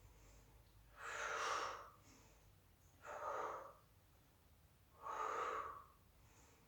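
A woman breathing audibly and deeply while holding a strenuous yoga backbend: three breaths about two seconds apart.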